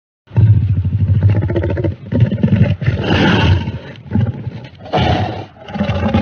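Kaiju monster roar sound effect: a series of about five deep, growling roars, each one to two seconds long, starting suddenly out of silence.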